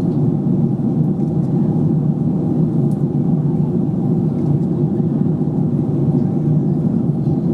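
Jet airliner cabin noise at cruise: a steady, even low rumble of engines and rushing air, heard from inside the cabin.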